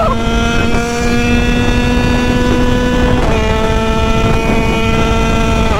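Italkit 80cc-kitted Derbi two-stroke engine screaming at high revs under full throttle, with wind rushing past. The pitch steps down slightly about three seconds in, then drops away sharply at the very end as the engine seizes.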